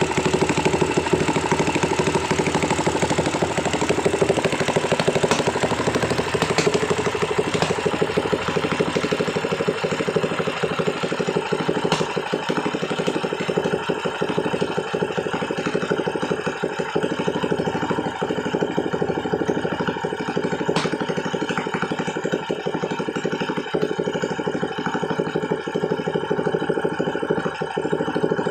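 Kawasaki Ninja engine running steadily at idle.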